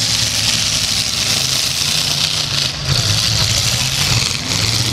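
Eight-cylinder demolition derby car engines running and revving, with a steady low engine drone.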